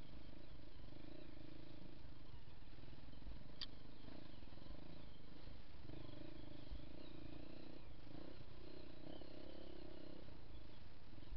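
Dirt bike engine running at low revs, its note rising and falling every few seconds with the throttle. There is one sharp click about three and a half seconds in.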